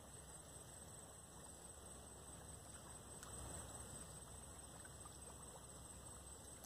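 Near silence: faint steady outdoor background hiss with a thin, steady high tone.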